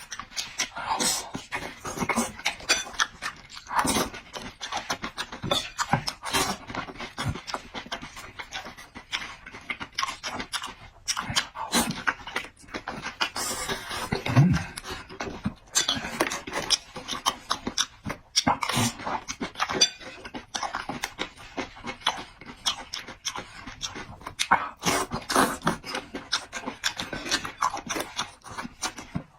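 A person eating close to the microphone: wet chewing, lip smacks and clicks in an irregular, unbroken run.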